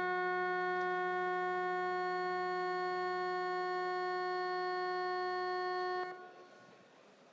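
Steady electronic signal buzzer in a parliament chamber, one unbroken tone rich in overtones, sounding during a quorum call to summon members and cutting off about six seconds in.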